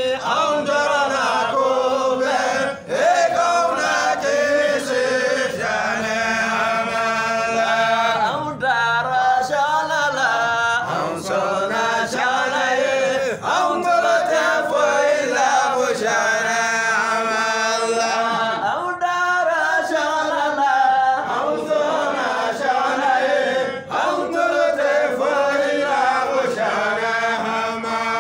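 Men's voices chanting an unaccompanied Islamic devotional song, long held and wavering notes sung in turn and together.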